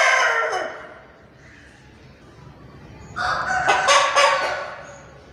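Two loud, drawn-out chicken calls. The first falls in pitch and fades out within the first second, and the second starts about three seconds in and lasts about a second and a half.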